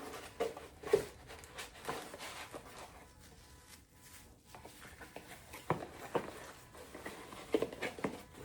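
Scattered light clicks and knocks of small plastic items being handled and unpacked, the sharpest about a second in and a cluster of taps near the end.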